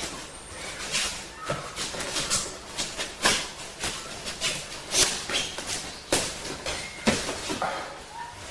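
Irregular run of sharp smacks and thuds from hands and forearms striking and blocking in two-person karate drill, with feet shuffling on the floor.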